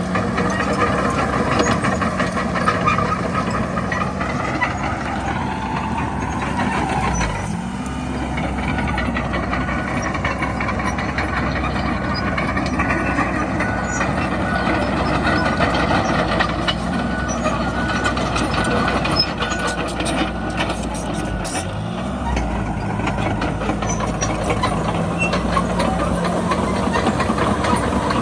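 Komatsu D31PX bulldozer's diesel engine working under load. The engine note sags and recovers twice, about a quarter of the way in and about three-quarters of the way in. There are scattered sharp cracks around two-thirds of the way through.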